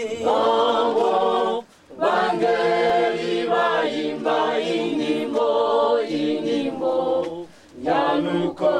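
A cappella choir singing in harmony, without instruments; the phrases break off briefly twice, about two seconds in and near the end.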